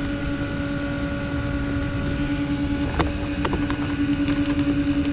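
A steady mechanical hum, like a small motor running, over wind rumble on the microphone. A sharp click comes about three seconds in, followed by a few faint ticks.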